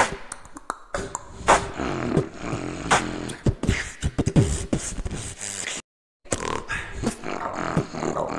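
Beatboxing: a human beatboxer's vocal percussion of sharp kick- and snare-like hits with bass tones and sliding pitched vocal sounds. It cuts to silence for about half a second two-thirds of the way through, then resumes.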